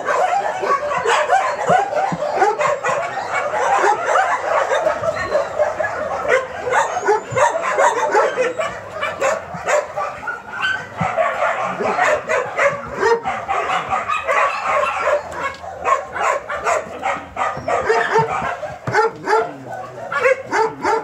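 A litter of young puppies yapping together, a steady stream of many short, high, overlapping yips and barks.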